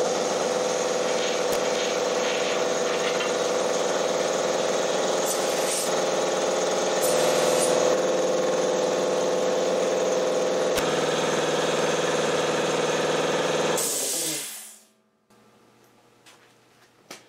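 Sanborn 20-gallon oil-lubricated air compressor running steadily as it pumps up its tank, then reaching cut-out pressure about fourteen seconds in: a short burst of hiss as the unloader vents and the motor stops.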